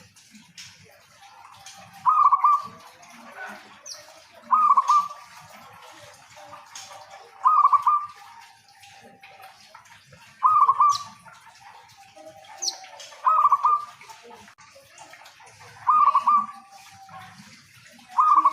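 A zebra dove cooing. It gives a short rolling coo phrase with a lower trailing note, repeated every two to three seconds over a faint background hiss.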